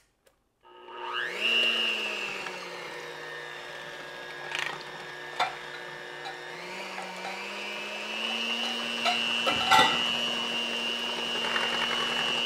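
Electric hand mixer running, its beaters whipping a thin custard of egg yolks, cream and milk in a plastic bowl. The motor whine starts about a second in, drops in pitch for a few seconds, then rises and holds steady. A few sharp clicks come through along the way.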